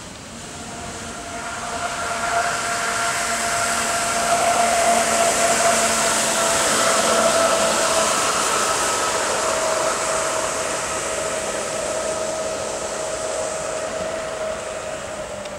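Electric jet surfboard's motor and jet drive running flat out as it passes: a steady whine over the hiss of water spray. It swells over the first few seconds and fades slowly, the whine sinking a little in pitch as it goes by.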